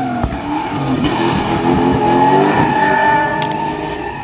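A drifting car's engine revving up and down hard as it slides, over a steady tyre squeal.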